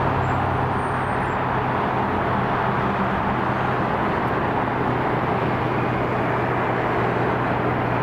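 Steady outdoor roar of airport and road traffic, with a constant low hum and no single event standing out.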